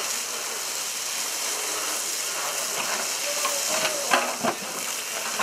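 Fire hose nozzle spraying a steady jet of water into a burnt wooden shed, a continuous hiss with water splashing on charred boards; a few short knocks about four seconds in.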